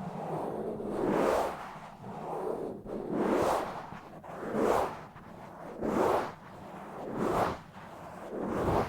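Fingers scratching and rubbing directly on a microphone in rough strokes that swell and fade about six times, roughly one every second and a half.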